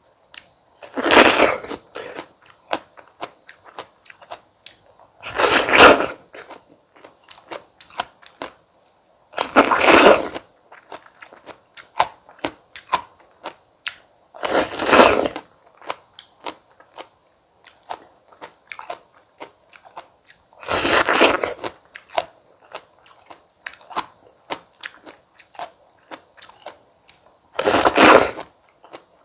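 Close-miked bites into firm stone fruit: six loud crunching bites about every five seconds, with chewing clicks and smacks in between.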